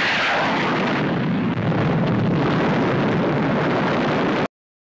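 Old newsreel soundtrack of an aircraft rocket firing and exploding at the target: a loud, continuous rushing rumble of noise with no distinct separate bangs, which cuts off abruptly about four and a half seconds in.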